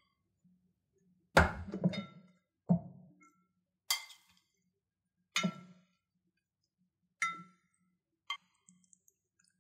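A spoon clinking and knocking against glass food-storage containers on a wooden board as scoops of salad are dropped in: about seven separate knocks a second or so apart, each with a short glassy ring, the loudest ones near the start with a dull thud under them.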